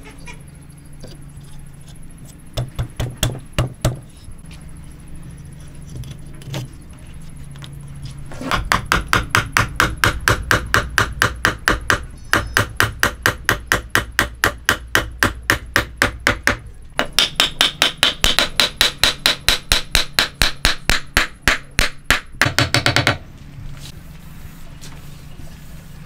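Hammer striking wooden timbers, driving an interlocking three-way wooden joint together. A few scattered taps about three seconds in, then a long run of rapid, even blows at about four a second that stops suddenly near the end.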